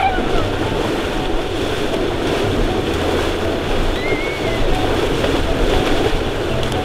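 Water splashing and churning as Asian elephants wade through a river, a steady rushing noise. A short high chirp about four seconds in.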